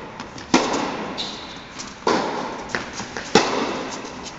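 Tennis ball struck back and forth in a rally: four sharp racket hits and ball bounces, each ringing out briefly in the echoing indoor tennis hall.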